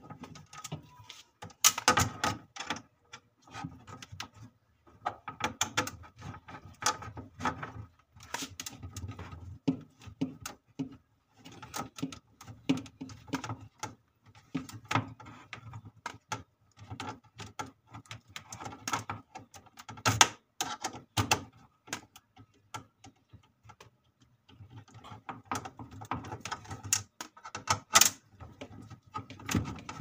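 A short screwdriver turning out the screws in the freezer compartment of a one-door refrigerator, heard as runs of rapid clicking and scraping in bursts with short pauses between them.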